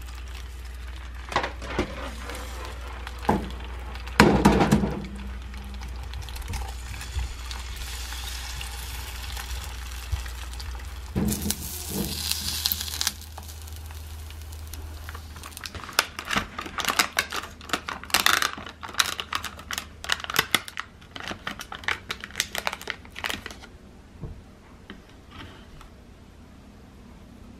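Kitchen clatter of dishes and utensils being handled: scattered knocks and clinks over a low steady hum, a short hiss about twelve seconds in, then a run of rapid clicks and rustles in the second half.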